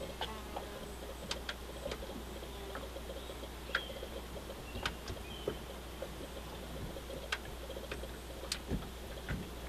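Quiet outdoor waterside ambience: a steady low hum under faint, scattered clicks and ticks, with a couple of brief bird chirps.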